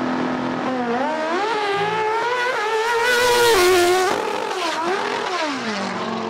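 Drag racing motorcycle launching and accelerating hard down the strip, its engine note climbing and dropping back several times as it shifts up through the gears, then falling away near the end.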